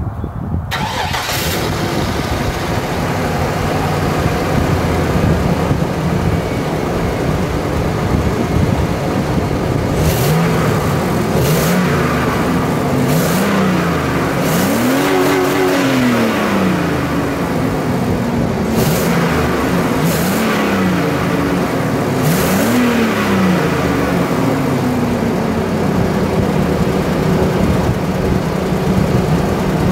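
1999 Chevy Silverado 1500's engine running through its stock exhaust, with catalytic converters and factory muffler, so the note is quiet. It idles, is revved in five short blips through the middle, each rising and falling back, the third the highest, then settles back to idle.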